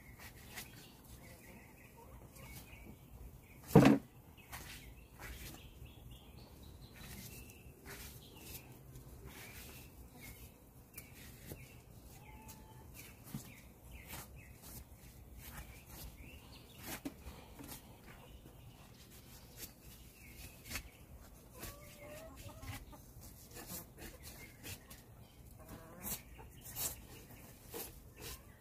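Faint clicks and rustles of a knife and hands skinning a hanging whitetail deer, working the hide off the carcass. There is one sharp, loud knock about four seconds in.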